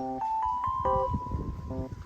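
Background music: a light melody of short, evenly pitched notes.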